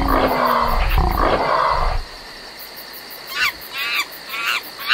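Two loud growling roars of wild animals, each about a second long, then quieter repeated short chirping calls of night creatures from just past the middle.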